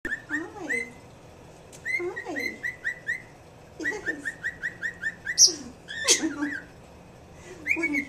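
Grey cockatiel whistling: phrases of short, quickly repeated rising chirps, about five a second, with lower sliding whistles beneath them. There are a few harsher, louder notes around the middle.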